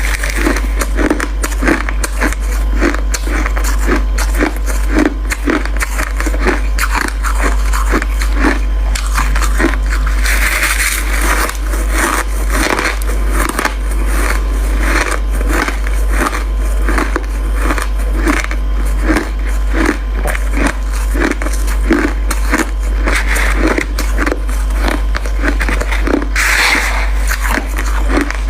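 Crushed white ice being bitten and chewed close to the microphone: continuous crunching, bite after bite, with dense crackling.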